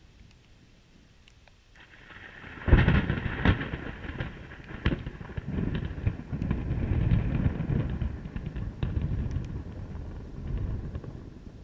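Thunder from a close lightning strike: a sudden sharp crack about three seconds in, then a long rolling rumble that swells and fades several times.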